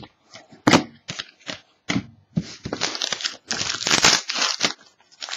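Foil trading-card pack wrappers being handled and torn open by hand. A few sharp crackles come first, then a longer run of dense crinkling and tearing about halfway through.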